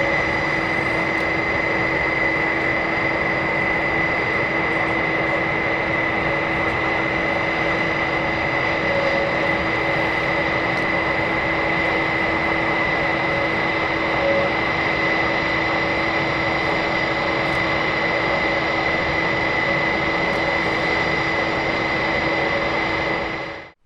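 Airbus A400M's turboprop engines running steadily on the ground, a constant noise with a high whine over a lower hum, cutting off abruptly near the end.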